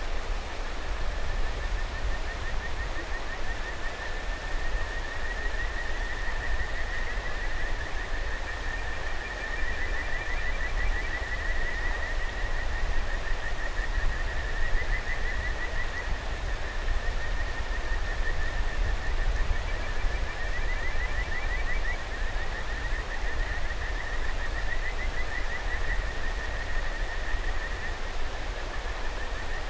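Kajika frogs (Buergeria buergeri) calling in an unbroken chorus, rapid trilled calls overlapping at slightly different pitches, over the steady rush of a mountain river.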